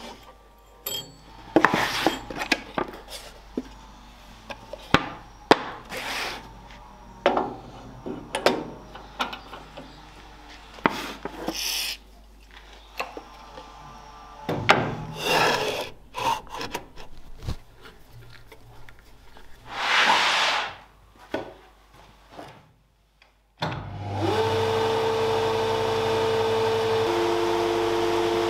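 A spindle moulder is set up by hand: knocks, clicks and wood scraping against the machine. About 24 s in its motor starts and runs with a steady hum and whine.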